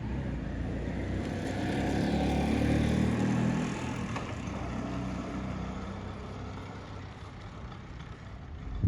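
A motor vehicle's engine passing by, growing louder to a peak a few seconds in and then fading away, with a short knock near the end.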